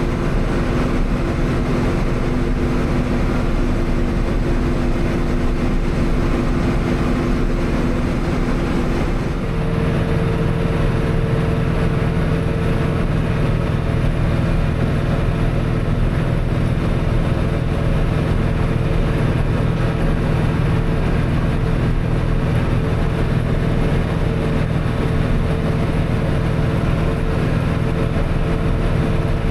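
Tractor engine running steadily while baling hay; its tone changes abruptly about nine and a half seconds in.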